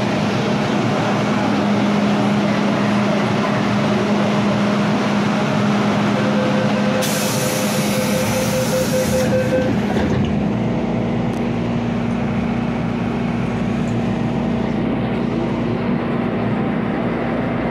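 MTR M-Train (Kwun Tong line EMU) running on the line: a steady rumble of wheels and running gear with a steady hum, and a hiss that joins for about three seconds midway.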